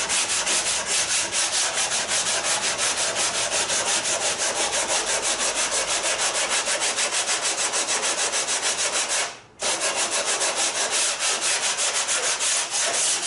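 Sandpaper rubbing over a cedar strip hull by hand, in quick, even back-and-forth strokes, with a short break about nine and a half seconds in.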